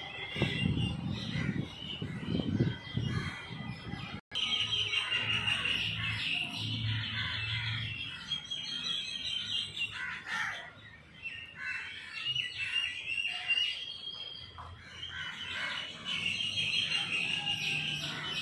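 Outdoor birdsong: many small birds chirping continuously, with crows cawing among them. Low rumbling in the first few seconds, and a brief break in the sound a little after four seconds in.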